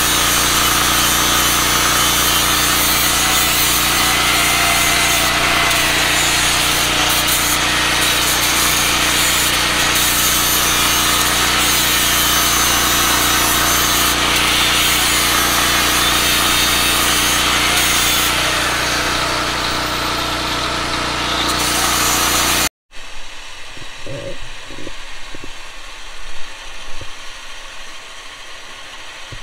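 Angle grinder grinding steel, running loud and steady. It stops abruptly about 23 seconds in, followed by quieter handling with a few light knocks.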